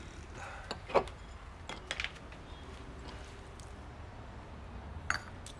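A few light clicks and clinks of plates and a table knife being handled while bagels are prepared, over a low room hum. The loudest click comes about a second in, two more follow around two seconds, and a sharp one comes near the end.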